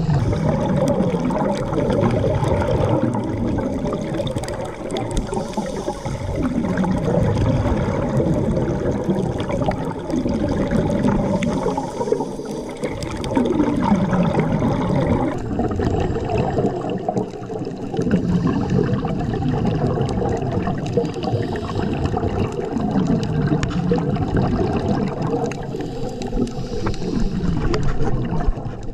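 Water rushing and gurgling around an underwater camera during a reef dive, with a faint steady hum underneath. The sound swells and eases every few seconds.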